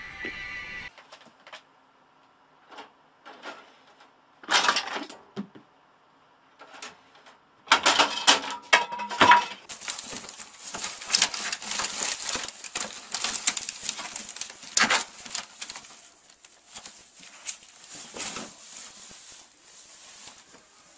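Plastic bin liner rustling and crinkling as a ferret rummages inside a wastebasket, with scattered knocks and short rustles first and dense crackling over several seconds in the middle, fading toward the end.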